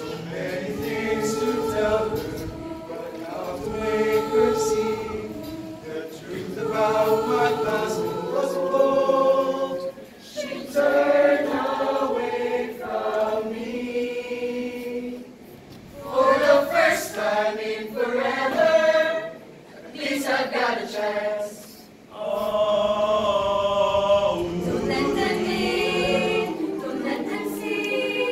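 Mixed choir of men's and women's voices singing a cappella in several parts, in sung phrases with brief breaths between them.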